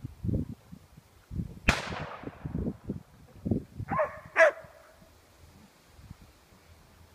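A single sharp distant gunshot about two seconds in, with an echo trailing away, then a dog barks twice in quick succession near the middle.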